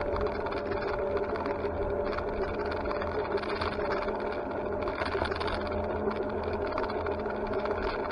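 A vehicle moving steadily along a road: a continuous motor hum with a few steady tones under road and wind noise.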